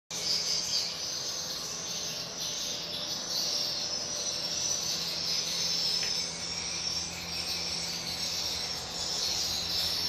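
Dense, high-pitched chirping chorus of swiftlet calls, the lure sound played through a swiftlet house's amplifiers and tweeters. A steady low hum runs underneath.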